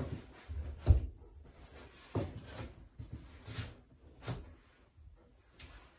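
A few separate dull knocks and thumps as a white interior wall panel is handled and pushed into place against the wall; the loudest is about a second in.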